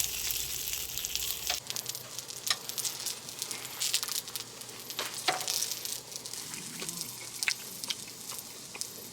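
Meat frying in a pan on a gas stove: a steady sizzle with scattered sharp pops of spitting fat.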